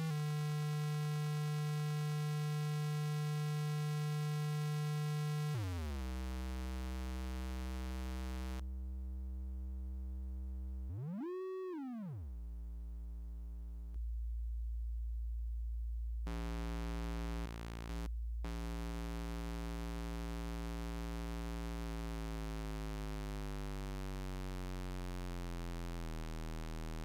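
Electronic test tone from a browser frequency generator: a buzzy square wave held near 160 Hz drops to a low hum at about 57 Hz. It then turns into a smooth sine that briefly sweeps up and back down, and later becomes buzzy again while gliding slowly down toward 40 Hz.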